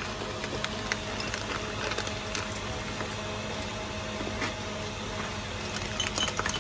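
Steady low hum with faint scattered clicks, then near the end a metal spoon starts clinking against a tall glass while stirring tea.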